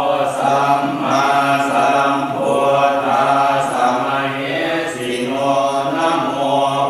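Thai Buddhist group chanting of Pali verses: low male voices in unison, a steady continuous chant with only brief breaks.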